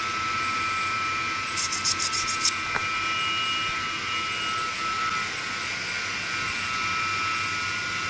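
Baldor electric motors of 75 hp pumps running, a steady machinery hum with a constant high whine. About one and a half seconds in, a quick run of about seven sharp ticks.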